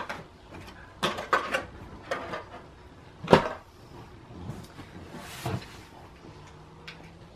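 Knocks and rustles of boxed items and packaging being handled, put down and picked up, with a sharper knock about three seconds in.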